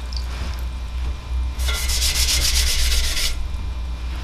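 A sponge rubbed over the spinning pottery wheel head to wipe it down: a stretch of rapid, rhythmic rubbing lasting almost two seconds midway, over a steady low hum.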